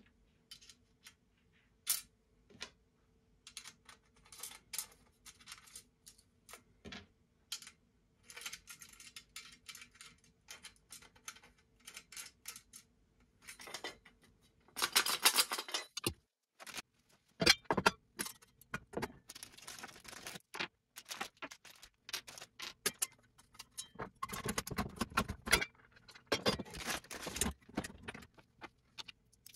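Metal hardware clinking and rattling as a steel ceiling TV-mount bracket is put together by hand: bolts, nuts and washers handled and fitted to the plates and tube, with many scattered sharp clicks and a few longer stretches of denser rattling. The audio is sped up to double speed.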